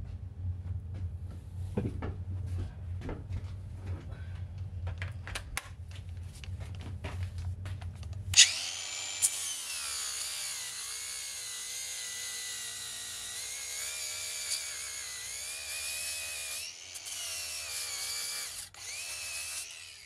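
For the first eight seconds or so, a low hum with scattered clicks and knocks. Then an angle grinder starts and runs with a steady high whine, its disc grinding the head off a copper nail set in a rusted iron boat knee so the nail can be driven out. The whine dips briefly twice near the end.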